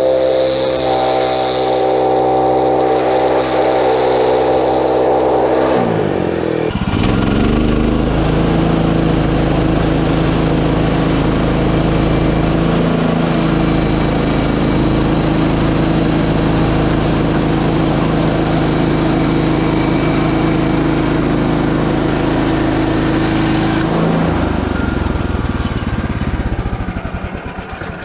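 The 14 hp Kohler engine of a Woodland Mills HM126 band sawmill running fast for about six seconds, then its revs dropping to a steady idle. Near the end it is switched off and runs down.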